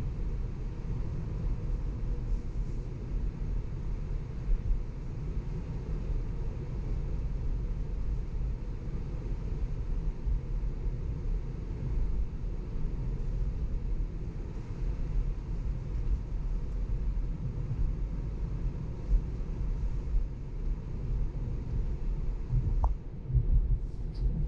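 Steady low road and tyre rumble inside the cabin of a moving Tesla electric car, with a few short knocks near the end.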